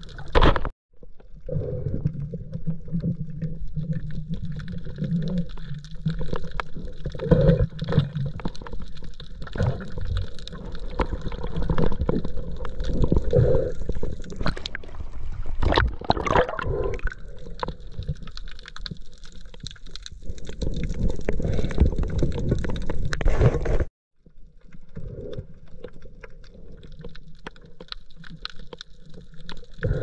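Muffled water sloshing and gurgling picked up underwater by a swimmer's action camera, heavy in the low end with uneven surges. About halfway through there is sharper splashing as the camera breaks the surface. The sound cuts out suddenly twice, shortly after the start and about three quarters through.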